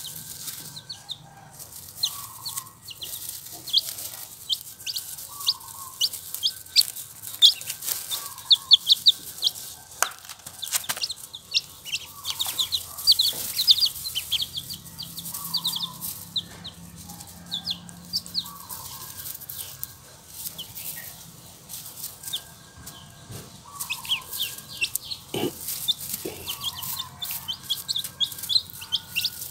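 Four-day-old chicks and ducklings peeping constantly, a dense run of short high chirps, with a lower call repeating every couple of seconds and a few sharp clicks.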